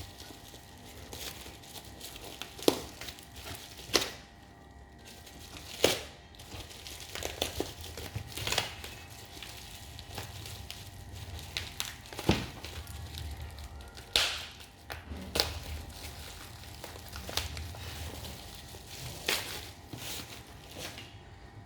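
Shipping packaging being opened by hand: plastic wrapping crinkling and a cardboard box being handled, with sharp knocks and taps every second or two.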